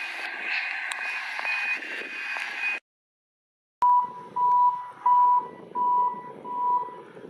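Vehicle reversing alarms beeping on a construction site, over steady machine and engine noise. A higher-pitched beeping runs first, then stops abruptly. After a second of silence, a lower-pitched backup alarm sounds five evenly spaced beeps.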